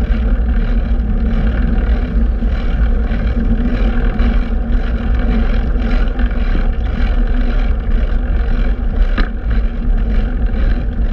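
Steady loud rumble of road and traffic noise with wind on the microphone, heard from a bicycle riding through city streets; a short sharp click about nine seconds in.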